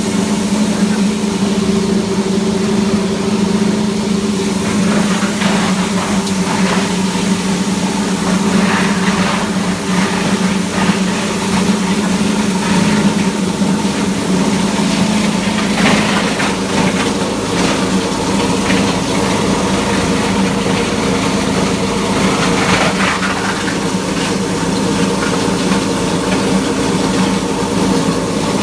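Enma GS300/500 series sound-proof plastic granulator running with a loud, steady hum. Brief clattering comes several times, mostly in the middle, as pieces fed into the hopper are cut.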